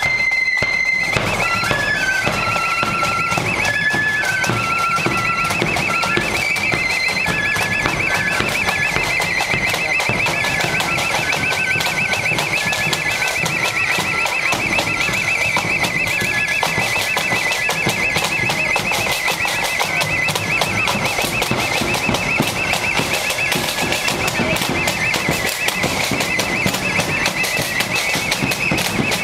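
Marching flute band music: a flute melody over steady drumbeats, the melody fading after about halfway, with a constant high warbling tone throughout.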